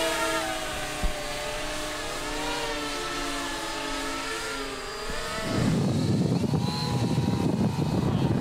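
RC airplane's motor and propeller running in flight, its pitch wavering up and down. From about five and a half seconds in, a loud wind rumble on the microphone covers it.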